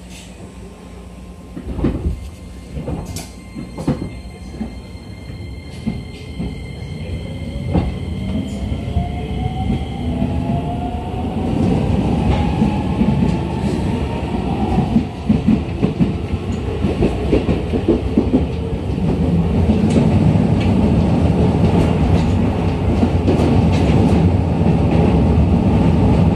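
Hokuso Railway 7500 series electric train heard from inside the car as it pulls away and accelerates: the traction motors' whine rises steadily in pitch. The wheels clack sharply over rail joints several times in the first eight seconds, and the rumble of wheels on rails grows louder as speed builds.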